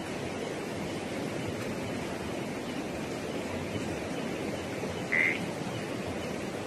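Steady outdoor background noise, an even hiss-like rush, with one short high-pitched chirp about five seconds in.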